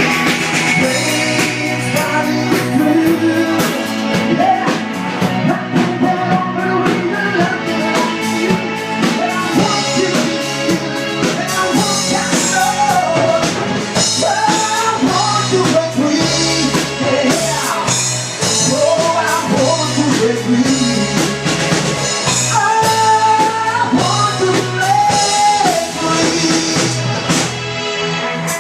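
Rock song playing, with a singing voice over drum kit and guitar.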